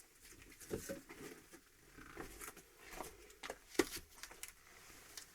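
Split birch logs being handled and laid onto a woodpile: scattered light wooden knocks and scrapes, the sharpest knock about four seconds in.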